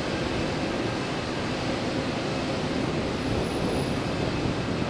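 The Pratt & Whitney PW1127G geared turbofan engines of an Airbus A320-271N on final approach make a steady, even rumble with a faint steady hum in it.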